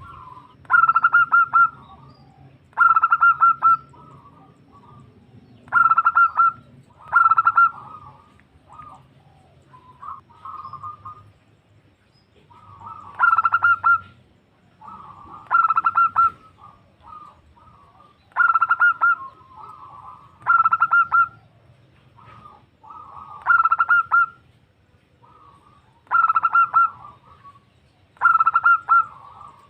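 Female zebra dove (perkutut) calling to a male: short bursts of rapid stuttering coo notes, repeated about every two seconds, with softer notes in between.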